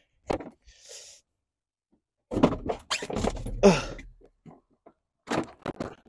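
Lug wrench knocking and clicking against a car wheel's lug nuts: one knock just after the start and a quick run of sharp clicks near the end. Between them, a strained, falling vocal grunt from the person working the wrench.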